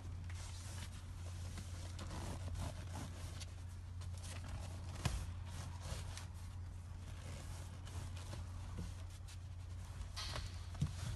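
A vinyl (PVC) car seat cover rustling and rubbing as it is worked down over a seat back by hand, with a few sharper clicks and knocks, over a steady low hum.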